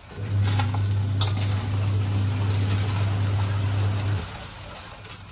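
A steady low mechanical hum starts a moment in and cuts off abruptly about four seconds in, over the faint sizzle and scrape of rice being stir-fried in a wok.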